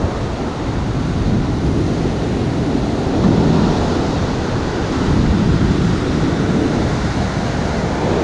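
Ocean surf breaking and washing up onto a sandy beach, with wind rumbling on the microphone.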